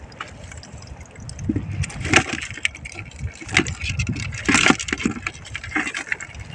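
Water splashing and sloshing in a plastic tub, with irregular knocks and clatter as hands sort swimming crabs in it, over a low steady rumble.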